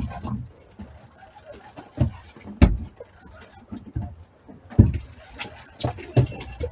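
Several irregular knocks and thumps, about six in all, the loudest about two and a half seconds in, over a faint background.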